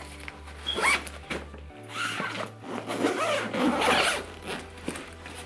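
Zippers on a soft cloth Kipling suitcase being pulled open and shut in several quick runs, with fabric handled between them. Quiet background music with a steady bass runs underneath.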